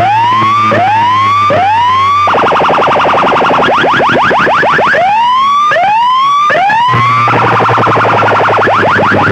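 Electronic siren effect played very loud through a competition sound-box speaker system: runs of fast rising chirps, about ten a second, alternate with groups of three slower rising whoops. A steady deep bass tone sits underneath for parts of it.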